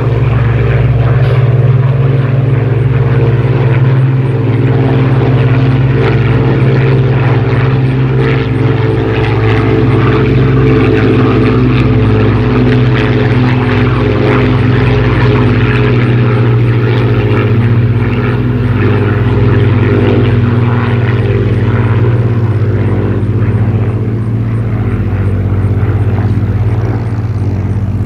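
Rolls-Royce Merlin V12 piston engine of a WWII British warbird running loud and steady with its propeller, the pitch wavering only slightly.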